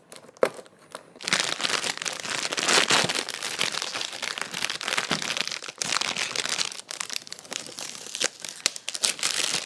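Clear plastic packaging bag crinkling and crackling as it is pulled out of a cardboard toy box and handled. It is a dense run of small crackles that starts about a second in and goes on steadily.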